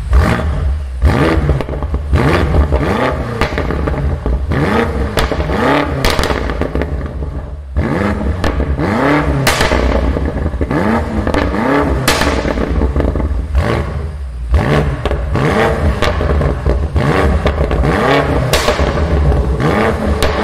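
High-performance car engine revved again and again, each rev rising and falling in pitch, with exhaust crackles and pops between the revs.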